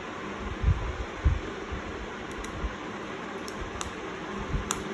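Steady hiss with two soft thumps about a second in and a handful of light clicks later, from small laptop parts and screws being handled during disassembly.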